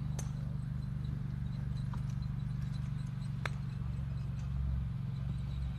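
Driving-range ambience: a steady low hum with three sharp clicks of golf balls being struck by clubs, the loudest a little over three seconds in.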